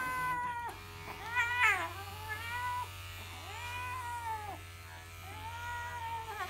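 A cat yowling while held down for grooming, about five long drawn-out yowls, each rising and falling in pitch. Under them runs the steady hum of electric grooming clippers.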